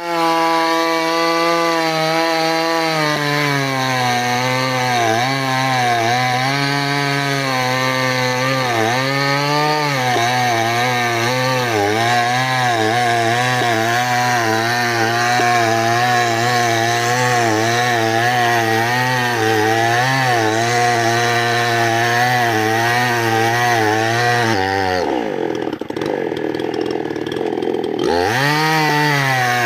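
Petrol chainsaw cutting through johar hardwood, its engine note wavering and dipping again and again as the chain bites. About twenty-five seconds in the engine note falls away, then revs back up near the end.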